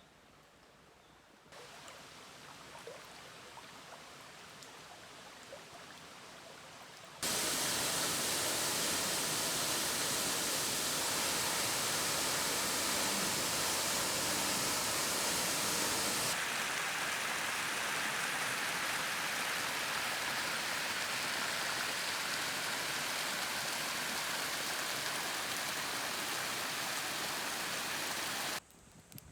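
Flowing river water rushing steadily. It comes in faintly, grows louder about a second and a half in, jumps much louder about seven seconds in, and cuts off abruptly near the end.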